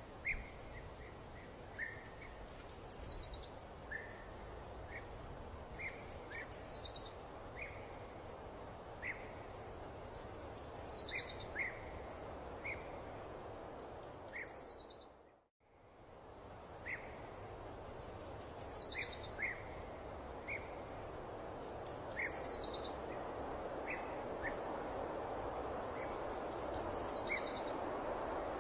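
Birds singing over a steady background noise: a high call that falls in pitch repeats about every four seconds, with short chirps about once a second between. About halfway through, the whole sound fades out briefly and comes back in.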